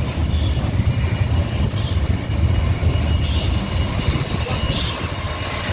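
Historic train running, a steady low rumble with faint soft beats about every second and a half.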